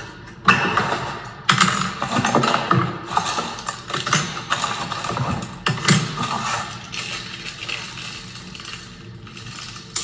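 Hands rummaging in a cardboard box of new deadbolt parts: rustling handling noise with a few sharp clicks and clinks, busiest in the first half and dying down toward the end.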